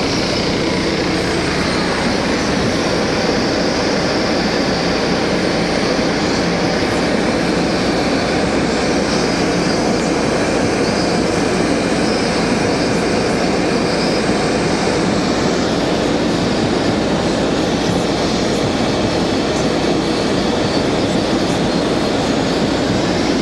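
Car driving through a flooded street in a downpour, heard from inside the cabin: a loud, steady rush of water spray and rain mixed with the car's running noise.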